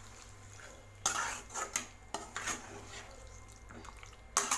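Steel spatula scraping and knocking against an aluminium kadai while stirring and sautéing marinated chicken pieces. There are several quick scrapes in the first half, a pause, then one more near the end.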